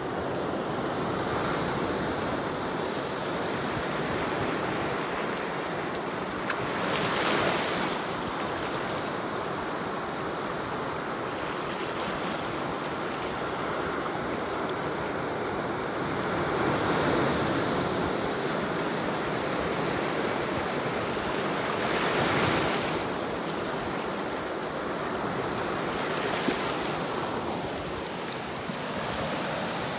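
Surf washing in over a black lava-rock shoreline: a steady wash of water, with louder surges as waves break, about 7, 17 and 22 seconds in.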